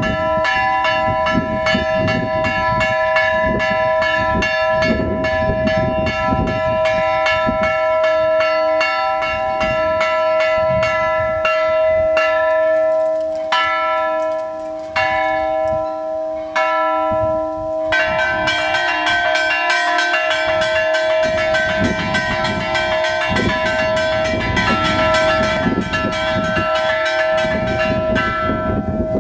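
Church bells of Agia Panagia chimed by hand in a free, improvised combination, several bells struck over one another. The strokes come thick and fast, thin out to a few separate strokes about halfway through, and then build into a fuller, denser peal for the last third.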